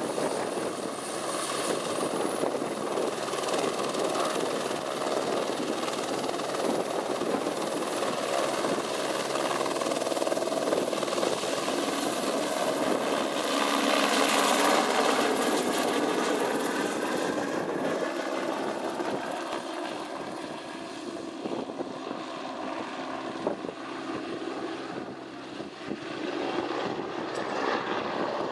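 AS350 Squirrel helicopter's rotor and turboshaft engine in flight, carrying a 500 kg barrel on a 7 m underslung sling. The sound is loudest about halfway through as the helicopter passes close, fades in the later part, then swells again near the end.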